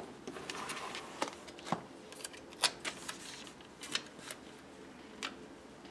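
Paper stickers being peeled from their backing and pressed onto a journal page by hand: soft paper rustling with a scattering of small clicks and taps.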